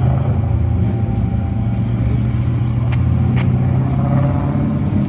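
Race car engines running as cars roll slowly down the pit lane: a steady low engine drone that fades after about four seconds, with two short clicks a little after three seconds.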